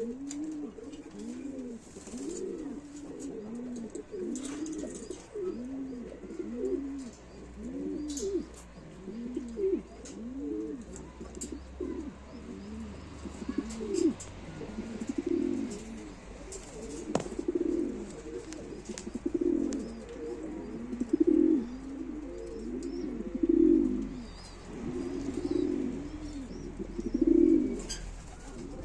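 Domestic pigeons cooing steadily, a run of low rolling coos a little faster than one a second, swelling into longer, louder coos in the second half: the courtship cooing of pigeons being paired. A few faint clicks and taps.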